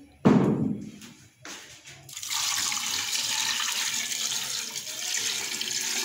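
A short loud knock just after the start, then about 2 s in a steady stream of water starts pouring from a jug onto mutton pieces in a pressure cooker and runs on.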